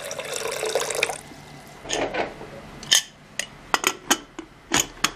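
Water pouring into an aluminium pressure cooker over soaked white beans, cutting off about a second in. Then a string of sharp metallic clanks and clicks as the aluminium lid is set on the cooker and closed by its handle.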